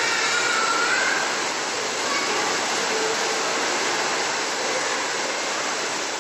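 Steady rushing background noise at an even level, with no distinct events.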